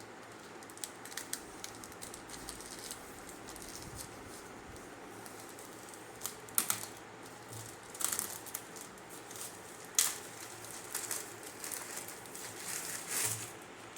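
A shipping package being cut open and unwrapped by hand: irregular snips, scratching and crinkling of packaging, with sharp clicks loudest about six and a half, eight and ten seconds in.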